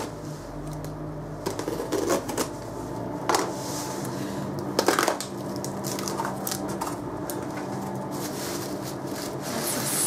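Box cutter slicing through packing tape on a cardboard box and the flaps being worked open, with several short scraping, tearing noises.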